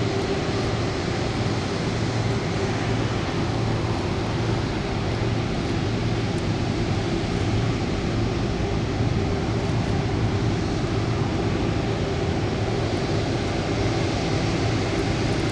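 Boeing 787-8 Dreamliner's GE GEnx turbofans running steadily at taxi power as the jet taxis: an even jet rumble and hiss with a steady low hum.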